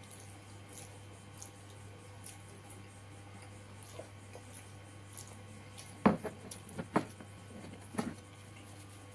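Close-up eating by hand: faint chewing, lip-smacking and finger-licking mouth sounds with small ticks, over a steady low hum. In the second half come three sharper knocks about a second apart.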